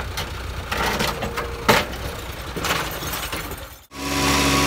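Massey Ferguson tractor diesel engines running: a low engine rumble with a few sharp knocks and clanks, the loudest just under two seconds in, then after a sudden cut near the end a louder, steady tractor engine idling.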